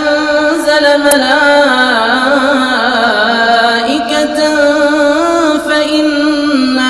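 A male reciter chanting the Quran in melodic tajweed style, drawing the words out into long, wavering sung notes with no pause.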